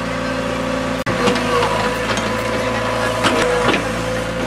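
Mini excavator's engine running steadily, with sharp knocks and clanks from the digging bucket and arm after a momentary break about a second in.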